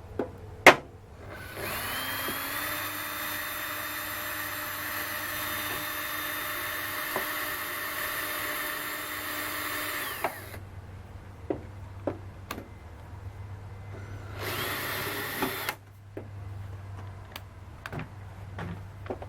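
A power drill spins up and runs steadily at a constant pitch for about nine seconds, then runs again briefly for about a second; sharp clicks and knocks of handling the tool and the work come between the runs.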